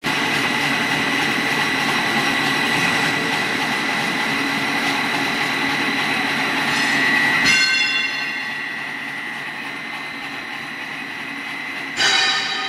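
Snack-food extruder line running: a steady, loud machine noise with a high whine. The sound shifts abruptly about seven and a half seconds in, with a higher stack of whining tones, and a sudden louder surge of high-pitched noise comes near the end.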